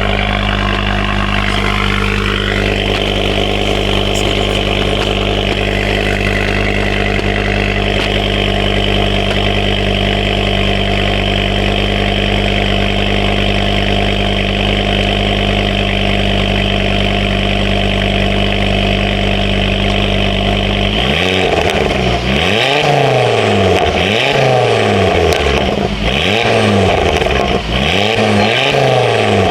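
Ford Focus XR5 Turbo's 2.5-litre turbocharged five-cylinder engine idling steadily, then revved up and let fall back several times in quick succession from about 21 seconds in. The exhaust note comes from the tailpipe and is much quieter, the exhaust leak at the loose joint having been tightened up.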